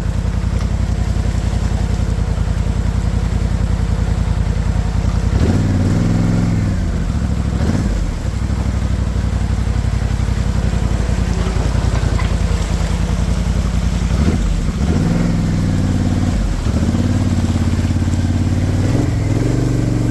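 Polaris Sportsman 850 ATV's twin-cylinder engine running while being ridden, the engine note rising and falling with the throttle several times, about a third of the way in and again through the second half.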